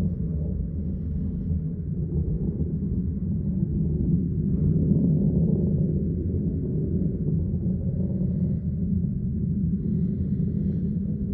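A continuous low rumble from the sky, deep and without a clear pitch, swelling a little about halfway through. Its source is not identified.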